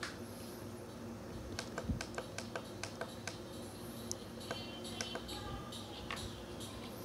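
Plastic buttons on a small clip-on MP3 player's round control pad clicking under a fingertip: a run of quick, irregular clicks starting about a second and a half in.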